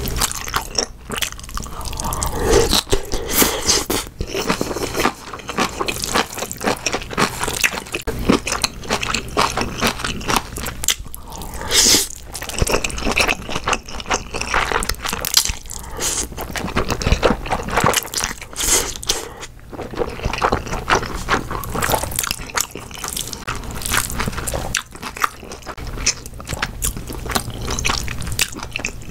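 Close-miked eating: crunchy bites and chewing of cabbage kimchi, and wet chewing and slurping of saucy Chapagetti black-bean instant noodles, in a steady run of crackly, smacking mouth sounds.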